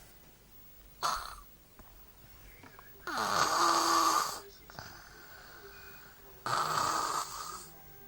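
A sleeping person snoring: three snores, a short one about a second in, a longer and louder one around three seconds in, and another near the end.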